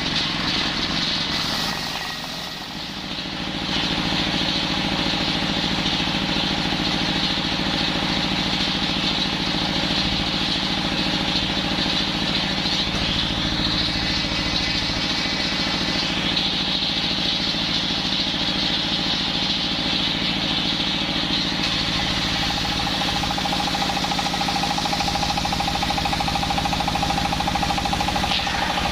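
Engine-driven circular saw running steadily, with a brief dip in level about two seconds in.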